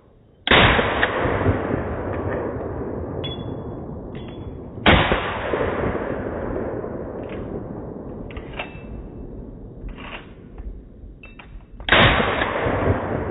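Three single shots from a G3-pattern 7.62×51mm battle rifle, about half a second in, at about five seconds and near the end, each followed by a long fading echo. A few faint metallic pings sound between the shots.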